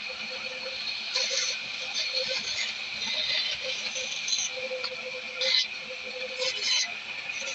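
Band saw running with a steady high whine while small scrap-wood pieces are fed through it by hand; short bursts of cutting noise come each time the blade bites into the wood, about six times.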